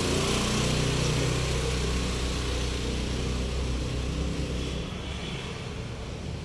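An engine running steadily with a low hum that drops away about five seconds in.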